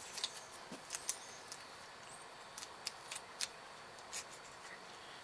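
Light, irregular metal clicks and scrapes of a small hand tool prying at the gasket under a starter motor's rear end cover.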